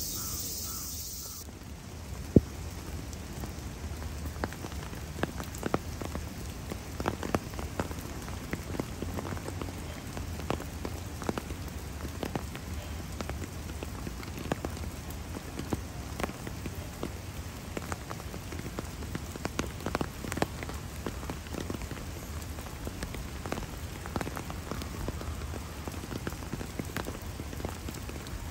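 Rain falling steadily, with many irregular drops tapping close by and one sharper tap about two seconds in.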